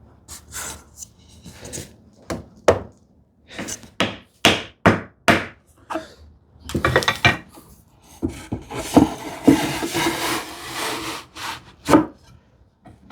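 Wooden knocks and rubbing as a glued wooden frame is handled and clamped: a string of separate sharp knocks, then a longer stretch of rubbing and scraping about two-thirds of the way through, and one more knock near the end.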